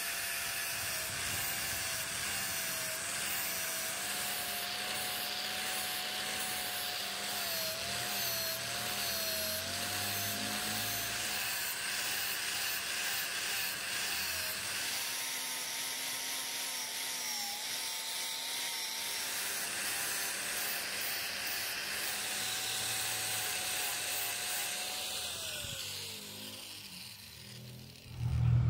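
Electric angle grinder with an abrasive disc grinding rust off a steel axe head, its motor whine wavering as the disc is pressed into the metal. Near the end the whine drops in pitch and fades as the grinder winds down.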